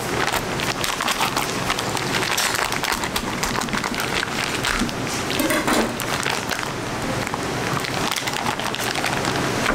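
Crinkling and rustling of a vacuum-sealed plastic pack as a knife slits it open and gloved hands pull the sliced bacon out, a dense crackle of many small clicks.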